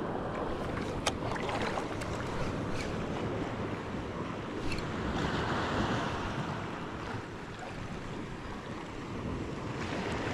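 Small surf waves washing and wind on the microphone, a steady rushing noise, with a few faint clicks.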